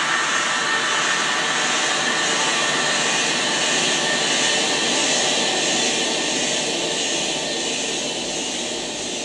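Loud, steady rushing noise like a jet engine, played over loudspeakers, easing off slightly near the end.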